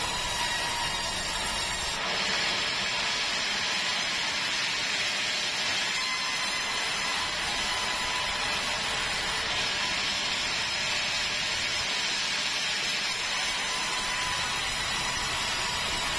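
Sawmill saw running and cutting keruing timber, a steady hissing saw noise with a faint whine, growing brighter about two seconds in as the cut gets under way.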